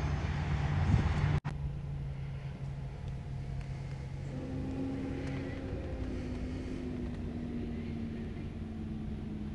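Steady low hum of the Ram 1500 pickup's idling engine heard inside the cab, with a brief sharp dropout about a second and a half in.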